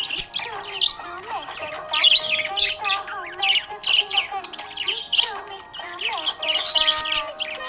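Budgerigar chirping and chattering in a busy run of short, high chirps, about two a second.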